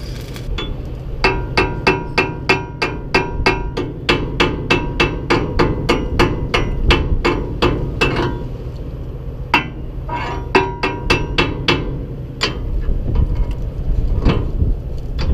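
Hammer striking steel at a welded seam: a long run of quick metallic ringing blows, about four a second, then a shorter run after a brief pause and a few single strikes near the end. A steady low rumble runs underneath.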